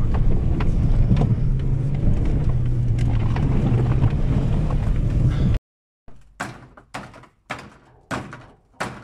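Volkswagen Polo driving over a rutted, muddy dirt track, heard inside the cabin: steady low engine and tyre rumble with knocks from the bumps. About five and a half seconds in it cuts off suddenly, followed by a run of sharp knocks about twice a second.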